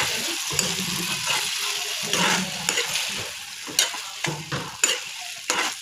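Maggi noodles sizzling in hot oil and dried-chilli-garlic tadka in a kadhai while a metal spatula stirs and tosses them, with scattered clicks and scrapes of the spatula against the pan, more frequent in the second half.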